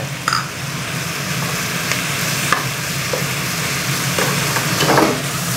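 Cabbage and bacon sizzling in a hot wok while a wooden spatula stirs and tosses them, with a few short scrapes and knocks of the spatula against the pan.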